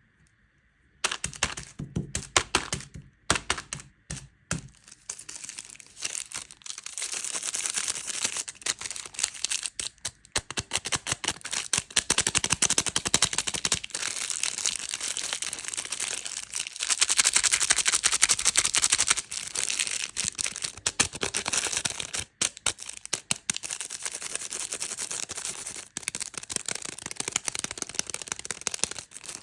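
Candy wrappers being crinkled and handled: sharp crackles that start about a second in, scattered at first, then a dense, nearly continuous crinkling with short breaks.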